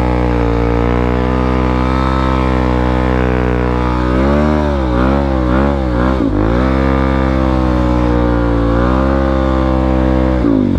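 Motorcycle engine running at a steady speed under way, its revs dipping and rising several times in the middle before settling back to a steady drone.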